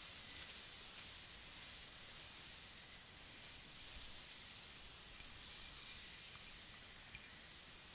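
Surf breaking and washing over rocks, a steady hiss of foam and spray that swells and fades with the waves.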